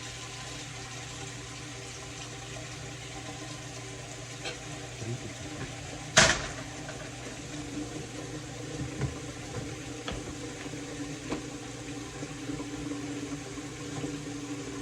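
Kitchen noises during cooking: a steady hum with a few light taps and one sharp clack about six seconds in.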